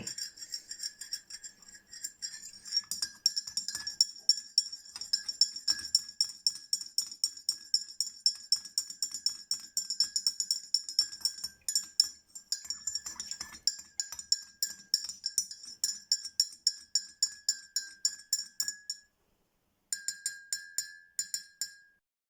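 A metal spoon stirring in a glass, clinking against the side about three to four times a second with a clear ringing note. It stops for about a second near the end, then clinks again briefly.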